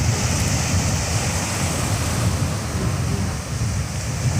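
Sea waves breaking and washing on a beach in strong wind, a steady surf noise with gusts buffeting the microphone as a low rumble.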